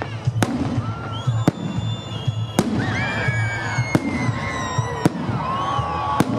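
Fireworks salute: aerial shells going off in sharp bangs about once a second, six in all.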